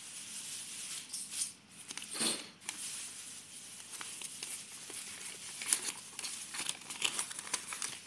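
Paper rustling and crinkling as a folded paper instruction leaflet is unfolded and handled, in irregular scattered rustles and light clicks, with a louder rustle about two seconds in.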